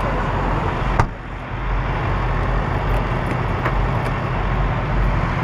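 Heavy diesel engine idling steadily with a low, even hum. A single sharp knock comes about a second in.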